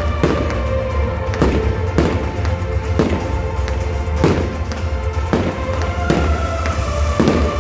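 Fireworks shells bursting in the sky, about eight bangs roughly a second apart, with music playing throughout.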